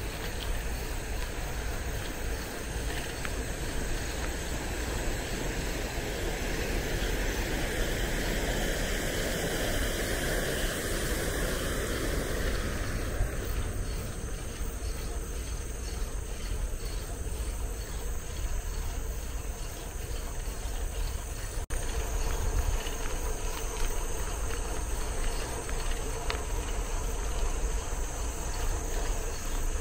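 Insects chirring steadily at a high pitch over a constant low rumble of wind and road noise, with a rushing swell between about 7 and 13 seconds in that stops suddenly.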